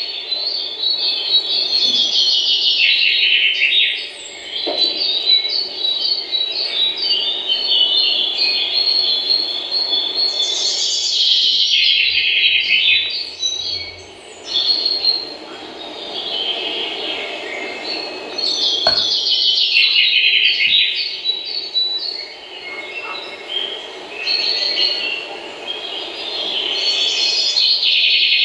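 Many small birds chirping together in a dense chorus that swells and fades in waves every few seconds, over a steady low background hum.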